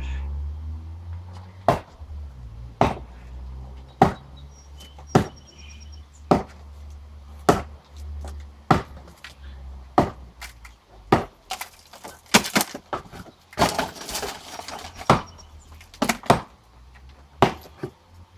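Sledgehammer blows striking and breaking up concrete and blocks, one sharp crack about every second, with a busier run of rapid cracks and clattering debris about two-thirds of the way through.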